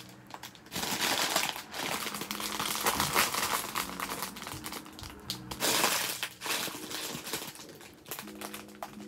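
Thin clear plastic packaging bag crinkling and rustling as it is handled, dense for most of the first six seconds and then fading, over soft background music.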